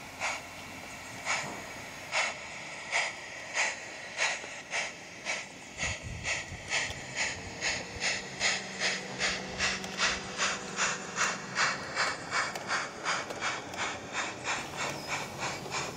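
Exhaust chuffs of a 16mm-scale model steam locomotive pulling a goods train away, the beats about one a second at first and quickening to about three a second as it gathers speed.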